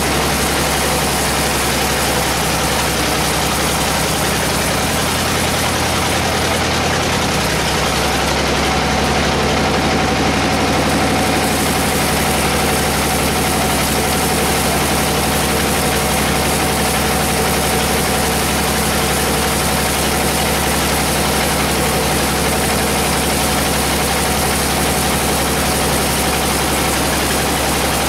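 Sawmill band saw machinery running steadily, an even mechanical drone with a steady whine.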